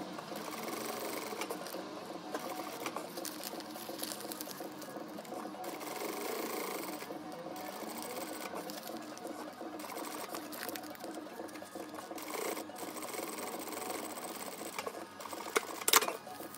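Industrial flatbed sewing machine running steadily as it stitches a seam in lightweight fabric, pausing briefly several times. A sharp click about a second before the end.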